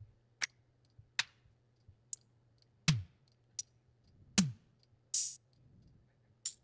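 Single drum-machine sounds from the UJAM Beatmaker IDOL plugin, auditioned one at a time: sharp clap and hi-hat hits, two deeper hits whose pitch drops, and a short open hi-hat hiss, each separated by short gaps.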